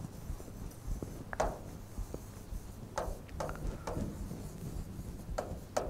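Chalk scratching and tapping faintly on a chalkboard as words are written, in a few short strokes.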